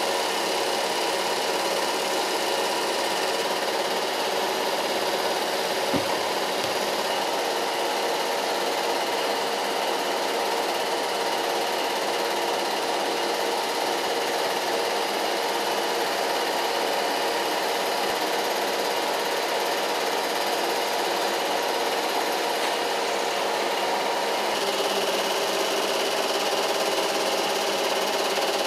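Eumig super 8 film projectors running, a steady mechanical whirr and clatter from the film transport and fan, with one short click about six seconds in.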